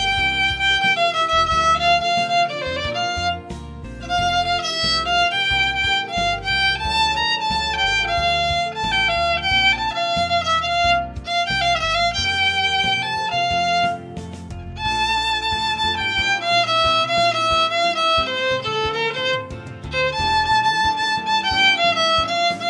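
Violin bowing a lyrical melody in phrases, with brief pauses between phrases.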